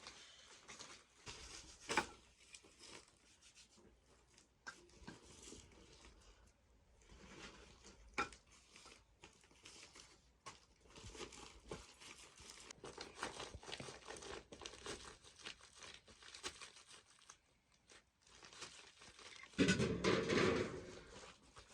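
Irregular rustling and crinkling from handling, with a couple of sharp clicks and a louder stretch of rustling near the end.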